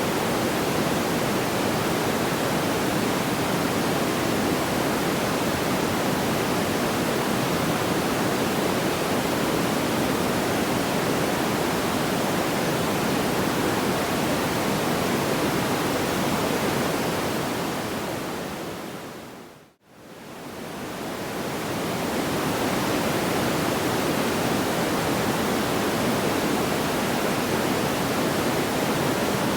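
Steady, even rushing noise from a looped sleep-sound track, with no audible crackles. About twenty seconds in it fades down to near silence and swells back up, the seam where the loop restarts.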